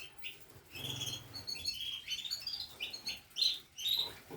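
Aviary finches and canaries chirping: a quick run of short, high chirps and twitters from several birds, with a louder rising call near the end.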